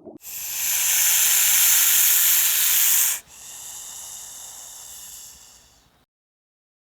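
A loud, steady hiss lasting about three seconds that cuts off suddenly, followed by a much fainter hiss that fades away.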